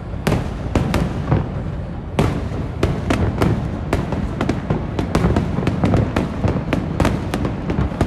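Aerial fireworks display: a dense, irregular barrage of bangs, several a second, over a continuous low rumble of distant bursts.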